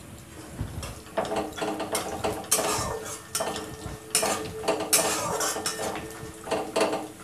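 A flat metal spatula scraping and stirring onions and peanuts frying in a kadai. The strokes are irregular, and each scrape sets the pan ringing faintly.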